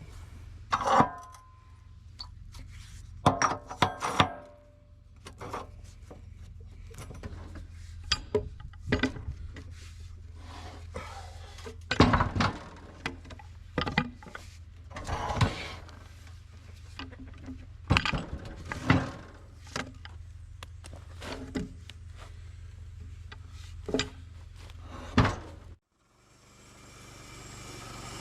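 Repeated wooden and metal knocks and clunks as a cherry log half is turned sideways and set on the sawmill bed, over a steady low hum. Near the end the sound cuts off, then a sawmill engine comes in, growing louder.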